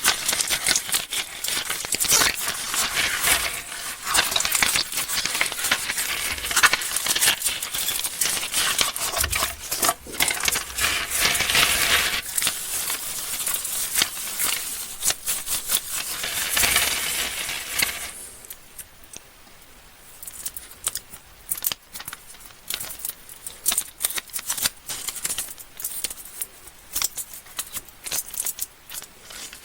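Candy wrappers crinkling and rustling as sweets are unwrapped, a dense crackle of crinkles and clicks that drops about two-thirds of the way through to quieter, scattered clicks and rustles.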